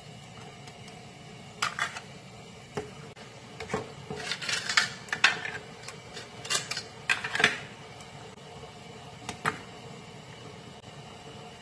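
Scallop and clam shells clicking and clacking against each other and the pan as they are laid into the broth: a run of sharp knocks, densest between about four and eight seconds in, over a faint steady hiss.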